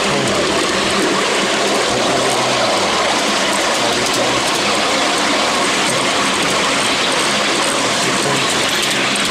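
Ride-on miniature railway train hauled by a Class 73 miniature locomotive, running steadily along the track: a continuous rumble and rattle of wheels on rail with a low hum underneath.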